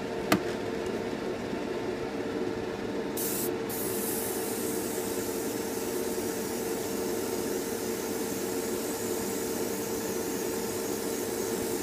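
Siphon-feed airbrush spraying paint: a short hiss about three seconds in, then a steady hiss of air and paint from about four seconds on. Beneath it the spray booth's extractor fan and the air compressor run with a steady hum, and there is a single click near the start.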